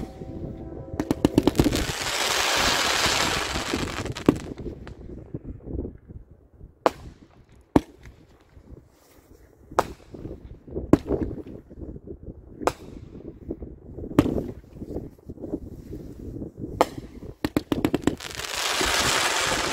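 A Dominator 'Essential Firework' 500-gram, 40-shot fireworks cake firing. Comet tails crackle densely for a few seconds shortly after the start and again near the end. In between, about seven single shots go off one by one as sharp bangs, a second or two apart.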